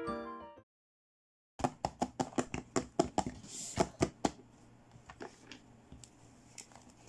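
Hands handling plastic toy packaging and doll accessories: a quick run of sharp clicks and taps, about five a second, then quieter, scattered taps and rustles.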